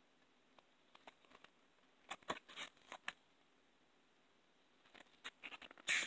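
Paper and cardboard packaging being handled: quiet rustles and light crackly taps in two short flurries, the louder one near the end.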